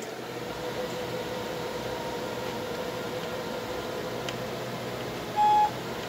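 Steady background hum with a faint steady tone, broken about five and a half seconds in by a single short electronic beep, the loudest sound here.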